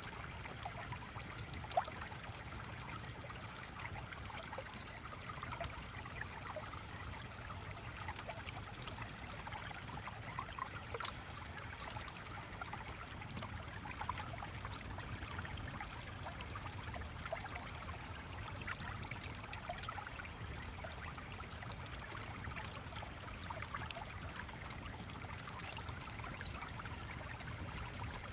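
A stream flowing and trickling steadily, with small scattered ticks through it and one sharper tick about two seconds in.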